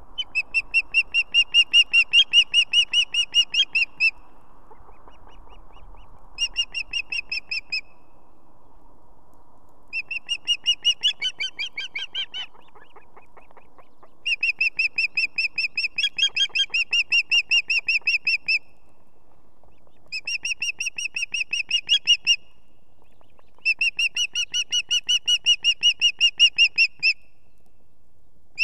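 Ospreys at the nest calling: six runs of rapid, high whistled chirps, about five or six a second, each run lasting a few seconds with short pauses between. These are food-begging calls, calling for the male to bring fish.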